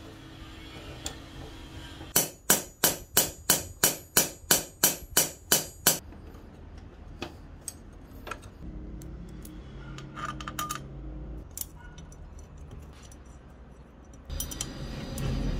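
About a dozen evenly spaced metal-on-metal taps, about three a second, each ringing briefly, as parts of a restored steel herb-slicing knife are fitted together; lighter clicks of metal parts being handled follow.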